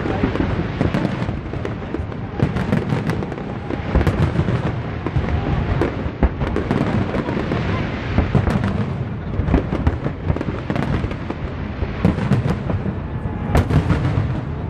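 Aerial fireworks display bursting in a continuous barrage: many overlapping booms and sharp cracks with a steady deep rumble under them and no pause.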